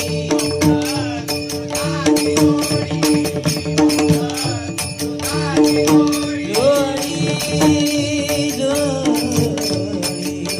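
Bhajan music: steady held tones under a wavering melody, with a dense, regular beat of percussion and jingling cymbals.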